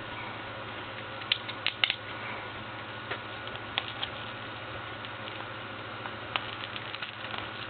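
A few scattered light clicks and taps from small objects being handled, over a steady background hum.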